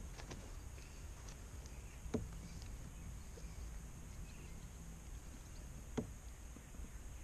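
Handling noises in a kayak as a bass is worked on a measuring board: a few faint clicks, then two sharp knocks about two seconds and six seconds in, over a steady low rumble.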